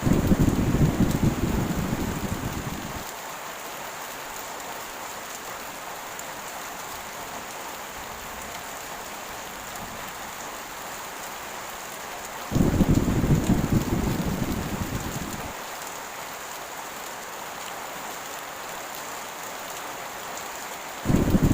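Heavy rain falling steadily, with rumbles of thunder: one at the start and one about halfway through, each lasting about three seconds. A third rumble begins at the very end.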